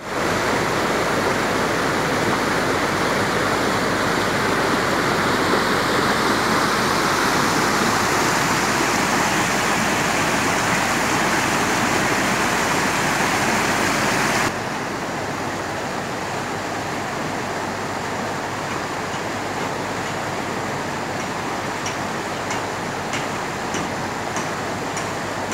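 Steady rush of river rapids. About halfway through it cuts suddenly to a quieter, steady rush, with a few faint ticks near the end.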